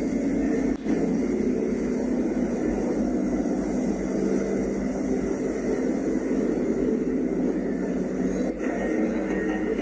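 Caterpillar 785 mining haul truck's V12 diesel engine running steadily under load as it pulls a loaded lowboy trailer past close by.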